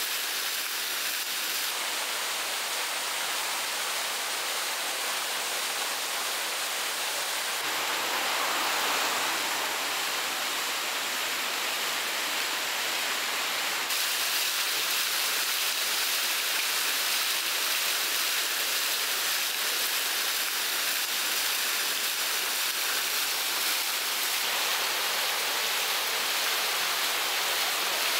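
Water pouring and splashing from the buckets of Asakura's wooden triple waterwheel as it turns, and churning in the channel below: a steady rushing that shifts in tone a few times.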